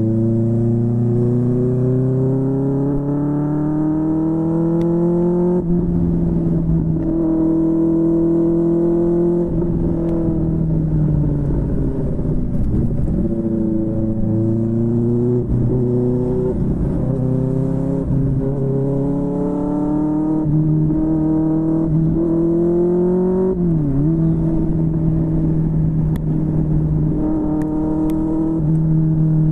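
QJMotor SRK600's inline-four running through a Yoshimura R11 exhaust on the move. The revs climb for about five seconds, then drop sharply at an upshift, then hold and ease off, with more short rises and quick dips at further gear changes.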